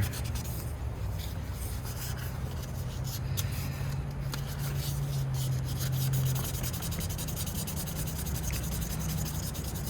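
Fine 3000-grit sandpaper rubbed by hand over a steel pocket-knife blade in steady strokes, a continuous even rasp as the blade is polished to a shine.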